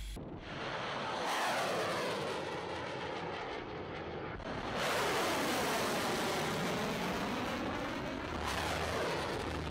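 Shipborne surface-to-air missiles launching one after another: each rocket motor sets off a sudden, loud rushing noise that swirls and sweeps in pitch as the missile climbs away. Fresh launches come about a second in, about five seconds in, and again near the end.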